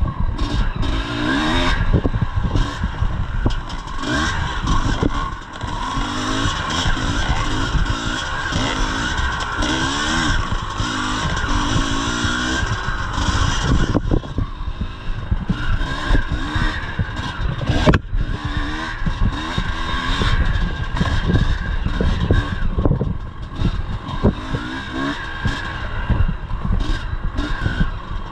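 1983 Yamaha IT 250's two-stroke single-cylinder engine revving up and down over and over as the bike is ridden hard along an enduro trail, with knocks and clatter from the bike over rough ground and one sharp knock about two-thirds of the way through.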